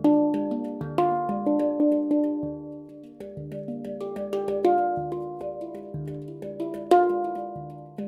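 Handpan (hang drum) being played: a flowing run of struck, ringing notes overlapping as they decay, with louder accented strikes at the start, about a second in, and near the end.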